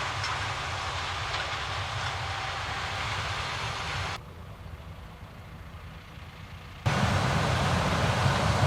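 Steady drone of corn-harvest machinery engines running under load, heard in three shots joined by abrupt cuts. The middle shot, from about four to seven seconds in, is quieter and duller than the others.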